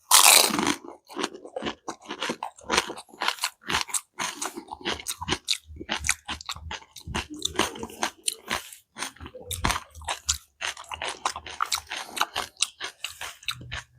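A bite cracks the crisp shell of a curd-filled pani puri (dahi golgappa) right at the start, followed by steady crunchy chewing with many small crackles.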